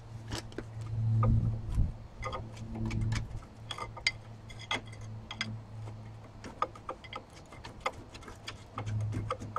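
Irregular metal clicks and knocks of hand tools being worked against a badly rusted brake caliper and pads, over a steady low hum.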